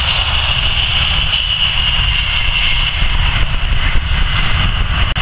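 Jet engines of an Airbus A320-family airliner at take-off power as it lifts off, a steady high whine over a low rumble.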